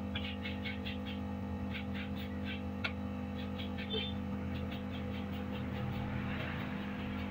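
Quick 850A hot air rework station running, its heat gun's blower fan blowing steadily with a constant hum while it heats a circuit board; the fan runs on a newly fitted blower potentiometer that replaced a faulty one. Short chirps come in quick runs over it, with a sharp click about three seconds in.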